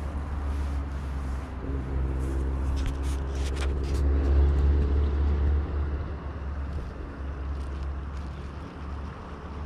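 An engine running, growing to its loudest about halfway through and then fading away, over a steady low rumble. A few sharp clicks about three seconds in.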